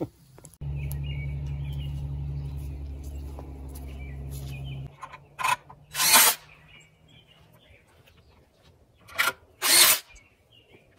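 DeWalt cordless impact driver driving screws into a wooden sawhorse: two pairs of short, loud bursts, about four seconds apart. Before them, a steady low hum lasts about four seconds.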